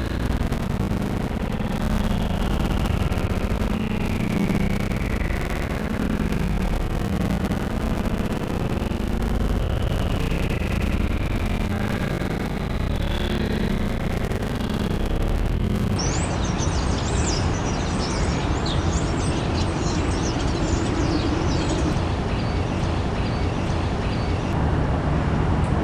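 Steady city traffic rumble. After a cut about two-thirds of the way through, many short, high, falling bird chirps sound over it.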